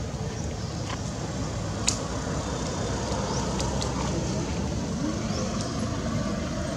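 A motor vehicle running as a steady low hum, with a sharp click about two seconds in and a few faint short high chirps.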